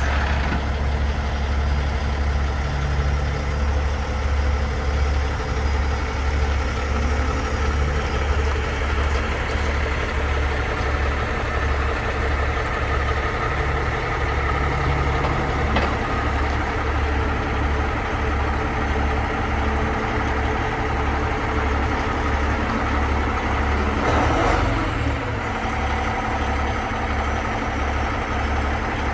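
Heavy diesel truck engine idling steadily, a deep even pulsing hum, with a short sharp knock at the start and a brief clatter about 24 seconds in.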